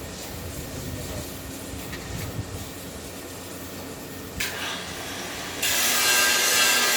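Submerged arc welding equipment running with a steady low mechanical rumble. About four and a half seconds in a hiss rises, and about a second later a much louder steady hiss starts and keeps going.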